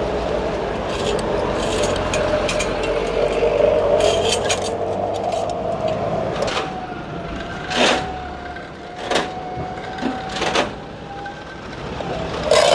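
Running noise of a moving vehicle heard from on board: a steady engine and road hum that eases off in the second half. Three sharp knocks or clatters stand out in the second half.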